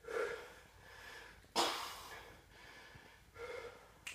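A man breathing hard while holding a side plank: a few short, forceful breaths, the loudest a sharp exhale about a second and a half in.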